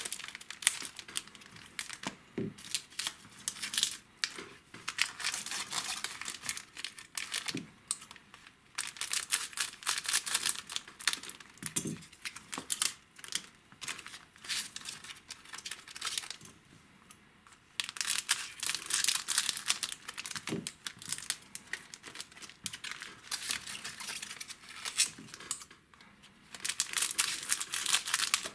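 Foil wrappers of Weiß Schwarz trading-card booster packs crinkling as they are handled and snipped open with scissors, in repeated bursts of crackly rustling and clicks with quieter gaps between.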